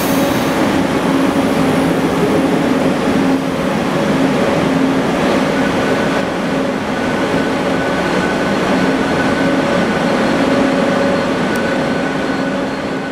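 SJ sleeper train's coaches rolling past as the train pulls out, a steady rumble with a low hum, echoing in the underground station. A faint high whine joins about halfway through.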